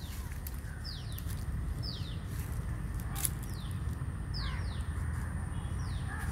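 A bird repeating a short, high call that falls in pitch, about once a second, over a steady low rumble.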